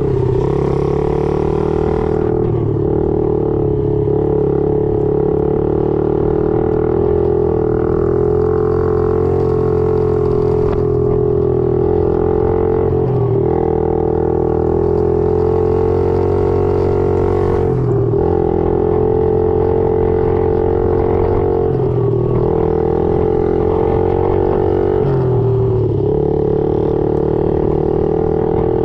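Small motorbike engine running steadily under way, heard from the rider's seat; its note briefly dips and picks up again about five times.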